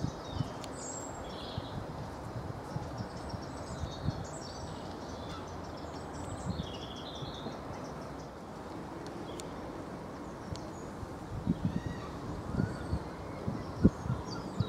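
Outdoor ambience: a steady background hiss with short, high chirping calls scattered throughout, and a few low thumps in the last few seconds.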